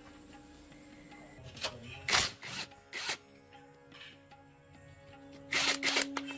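Background music with held tones, broken by short rasping noises: a few strokes about two seconds in, one about three seconds in, and a louder cluster near the end.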